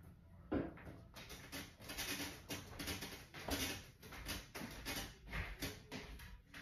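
Irregular rustling and light knocks of objects being handled, with one sharper knock about half a second in.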